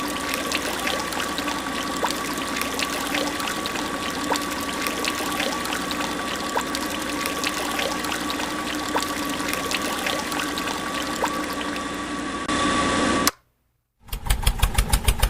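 Water or slurry trickling and pouring, with a small motor whining steadily over it and scattered light ticks, as from a miniature DIY pump running. It cuts off suddenly near the end, and after a moment of silence a pulsing electronic beat starts.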